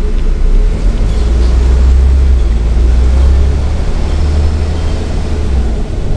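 Scania N94UB bus's rear-mounted diesel engine working under load, a deep low drone with road and body noise as heard inside the passenger saloon. The drone strengthens about a second in and eases off just before the end.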